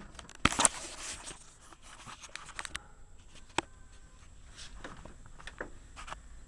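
Rustling and a run of small clicks, as of something being handled close by. The loudest clicks come about half a second in, then a few fainter, isolated clicks follow.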